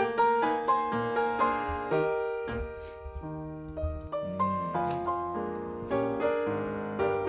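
Background music: piano playing a melody of single notes and chords, each struck and then fading.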